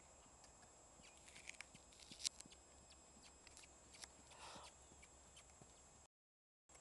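Faint hoofbeats of a Hanoverian filly trotting under saddle on a sand arena, with scattered light clicks from hooves and tack, the loudest about two seconds in, over a steady low hiss. The sound cuts out briefly near the end.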